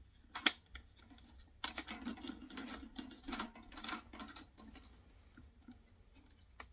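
Plastic fan parts clicking and scraping as the rear guard's retaining nut is threaded on by hand: a sharp click about half a second in, then a few seconds of rattling clicks and scrapes that die away.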